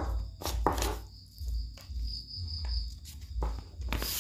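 Someone eating laksa noodle soup: a few short slurps and clicks of a spoon or chopsticks. Under them run background music with a low pulsing beat and a high, chirp-like pulsing tone.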